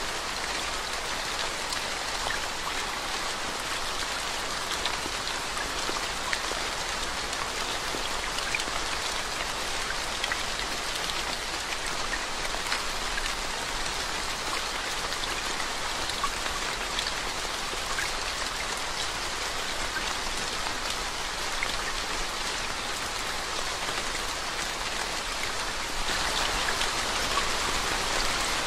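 Steady rain falling onto a water-covered road, an even hiss with many small individual drop splashes; it grows a little louder near the end.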